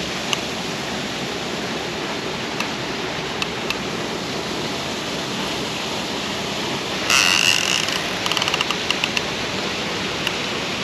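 Steady rushing noise throughout. About seven seconds in, the fishing reel's drag gives line for a moment as the hooked fish pulls: a short loud buzz with a high steady tone, then a quick run of clicks lasting about a second.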